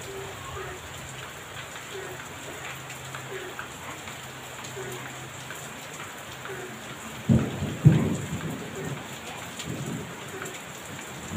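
Heavy rain falling steadily. About seven seconds in, a loud clap of thunder breaks in two sharp cracks half a second apart and rumbles away over the next couple of seconds.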